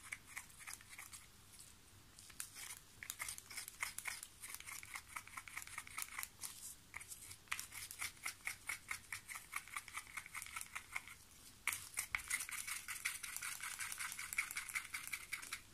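Stirring stick scraping and clicking against the mixing cup as pigment powder is stirred into epoxy resin, a quick regular rhythm of about three to four strokes a second. The stirring pauses briefly about three-quarters of the way through, then resumes a little louder.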